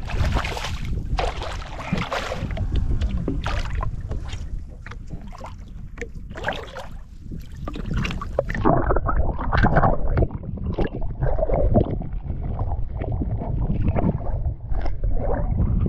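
Water splashing and sloshing beside a boat's hull, with a released trout splashing at the surface at the start. About halfway through, the high end drops away and the water sound turns muffled, heard from just under the surface.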